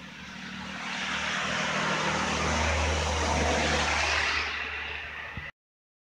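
A vehicle passing by with a low engine hum under a broad rushing noise that swells to its loudest about halfway through and then fades. The sound cuts off suddenly near the end.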